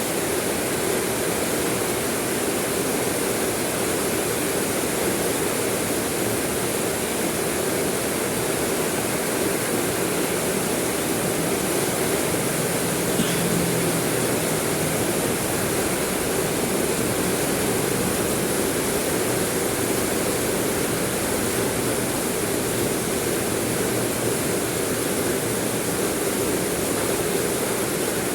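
Steady, unbroken rain hiss.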